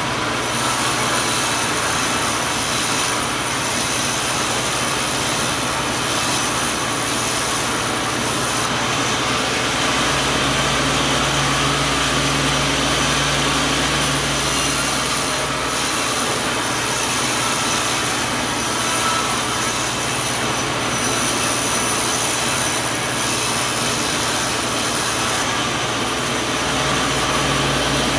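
Sawmill machinery running steadily with a loud, even whine and rush of noise; a deeper hum comes in for a few seconds near the middle and again near the end.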